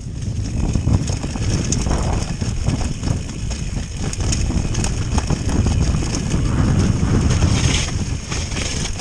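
Mountain bike descending a rocky, leaf-covered trail at speed: tyres rumbling over stones and leaves, with the bike rattling and knocking over the bumps.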